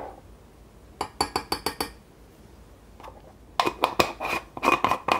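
A metal measuring spoon clinking against glass: a quick run of about seven light taps, then a cluster of louder clinks and knocks of spoon and glass jars near the end.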